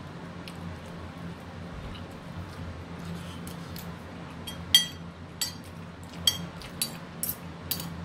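Ceramic plate clinking as fingers scoop rice and fish from it: about half a dozen sharp, ringing clinks in the second half, the first the loudest, over a low steady hum.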